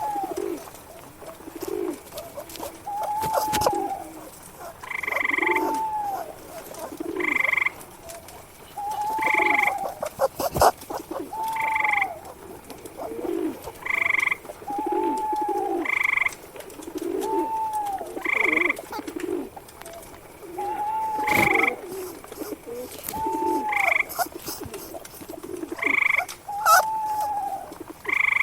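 A chorus of frogs croaking in a regular pattern, calls repeating about every two seconds in a few overlapping pitches. A higher pulsed call joins in after about five seconds, and occasional sharp clicks are heard.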